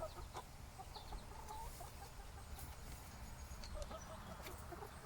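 Chickens clucking softly in short, scattered clucks, with a few faint clicks.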